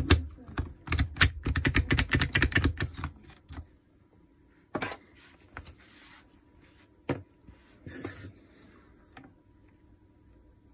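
Small metal chuck parts of a Makita DHR242 rotary hammer clicking and rattling as they are handled: a quick run of clicks for about three seconds, then a few separate clicks and a short scrape.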